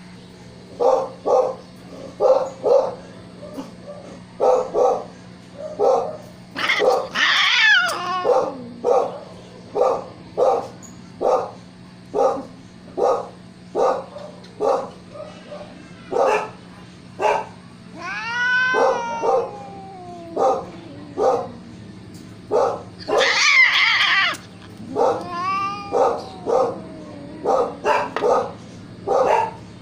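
Siamese cats meowing: a run of short, repeated calls, one or two a second, broken by four long drawn-out yowls that fall in pitch.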